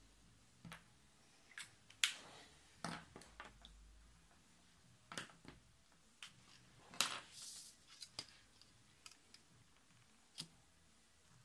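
Clear plastic set square and ruler being moved and set down on a sheet of paper, with pens handled: scattered sharp clicks and taps, the loudest about two seconds in and about seven seconds in, with a brief sliding rustle just after the second.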